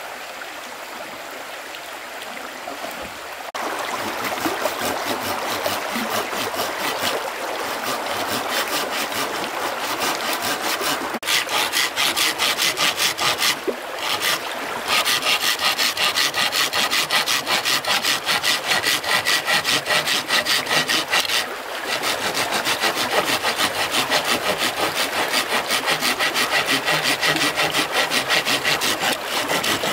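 Hand saw cutting through wood in quick, even back-and-forth strokes. It starts a few seconds in, gets louder partway through, and pauses briefly twice. A stream runs faintly underneath.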